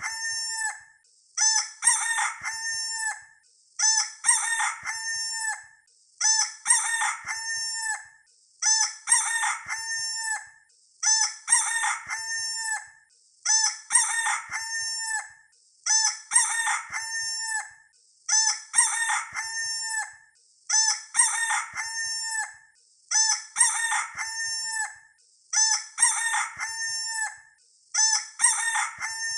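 A rooster crowing over and over, the same crow repeated at an even pace about every two seconds, like a looped recording.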